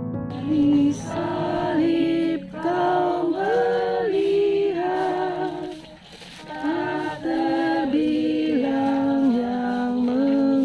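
A group of people singing a hymn together in unison without accompaniment, in sung phrases separated by short pauses.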